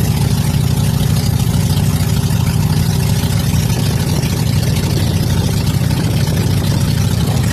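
Outrigger boat's engine running steadily under way, over a rush of wind and water.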